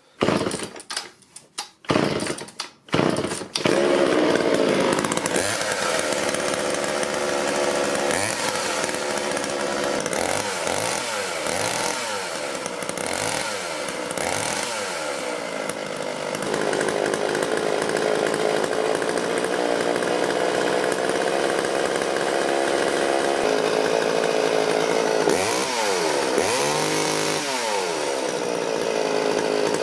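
The two-stroke engine of a Sachs-Dolmar 105 chainsaw starts after a few short bursts, then runs steadily, its throttle blipped up and down several times so the pitch repeatedly rises and falls. It is the old saw running again after being restored from a non-running state.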